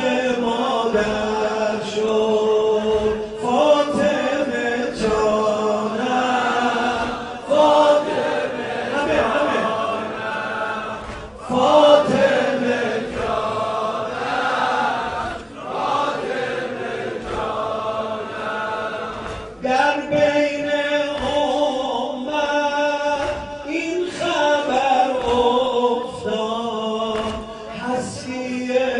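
A man chanting a mournful Persian elegy for Fatimah Zahra in long held notes. The phrases break off about every four seconds.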